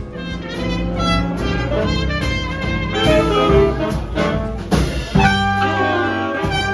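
Background music: an upbeat jazz-style arrangement with brass and a steady beat.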